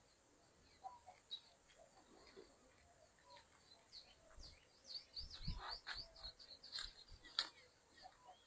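Faint birds chirping in short, quick calls, thickest in the second half, over a steady high hiss. A low thump comes about five and a half seconds in, and a sharp click near the end.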